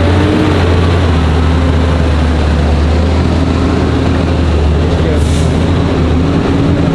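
Diesel engine of a rollback flatbed tow truck running steadily as the loaded truck pulls away, a low, even rumble that rises slightly in pitch near the end. A short hiss sounds about five seconds in.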